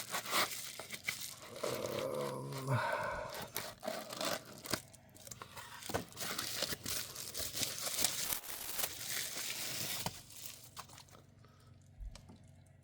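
Packaging being torn and crinkled open by hand: a run of crackling and rustling with sharp ticks that dies down near the end.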